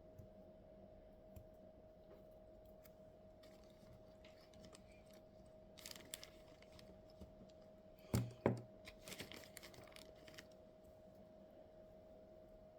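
Scattered light clicks and rattling from small hard objects being handled, with two sharp clicks about eight seconds in, over a faint steady hum.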